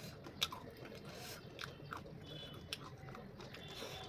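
A person chewing crunchy food close to the microphone, with a few sharp, crisp crunches between softer chewing.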